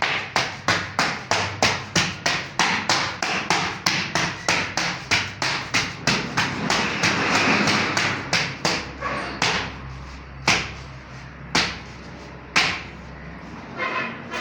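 Repeated hammer blows, evenly spaced at about three a second for some six seconds. Then comes a brief rasping scrape, then three single blows about a second apart.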